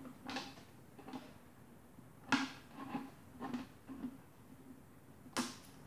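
Scissors snipping through a thin plastic soda bottle, about seven short, crisp cuts at uneven intervals as small slots are made in it.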